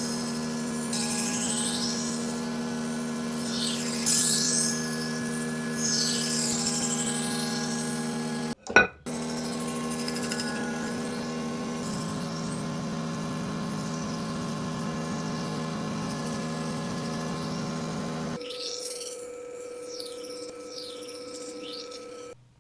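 A powered knife sharpener runs with a steady hum while a knife blade is drawn across the abrasive in repeated grinding strokes. A loud sharp knock comes about a third of the way through. Near the end the hum drops to a quieter, different tone, with lighter strokes, and the sound stops at the very end.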